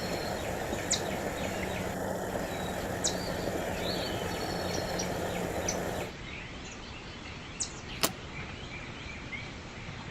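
Steady outdoor background noise with short high chirps and a few sharp clicks. About six seconds in it turns abruptly quieter and thinner.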